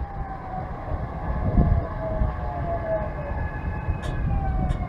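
SEPTA Market-Frankford Line M-4 subway train pulling into the station, its motors whining in several tones that fall steadily in pitch as it slows, over a low rumble of wheels on rail. A few sharp clicks come near the end.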